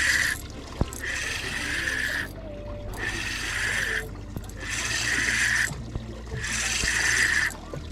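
Rhythmic rushing water noise: hissing bursts about a second and a half long, repeating about every two seconds with short breaks between.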